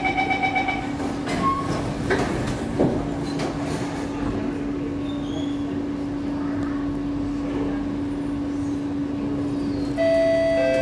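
Metro door-closing chime beeping, then the clicks and knock of the sliding doors shutting. The C151A train hums at rest, and near the end the traction motors start whining as it pulls away.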